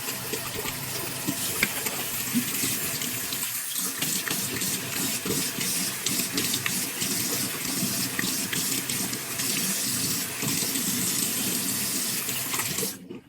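Bathroom sink tap running steadily into the basin, shut off near the end.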